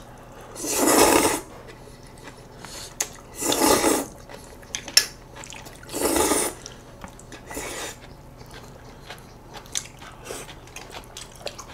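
Noodles slurped loudly three times, about two and a half seconds apart, each slurp a short hiss under a second long, with a weaker slurp after the third. Between them come quiet chewing and small clicks of chopsticks on plates.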